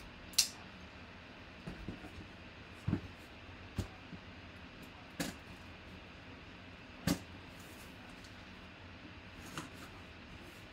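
Cardboard box being handled and its tape slit open with a folding knife: scattered clicks and knocks as the box is turned and cut, the sharpest about half a second in, over a steady low hiss.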